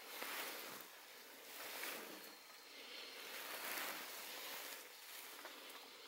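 Soft rushing outdoor background noise that swells and fades every second or two, with a faint thin high tone near the middle.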